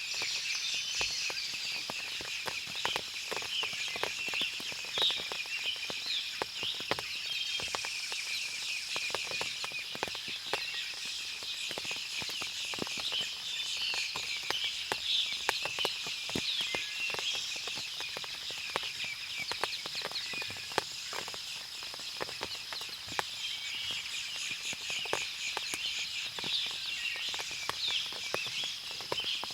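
Forest ambience: a steady high insect drone with many short bird chirps over it, and scattered short ticks throughout.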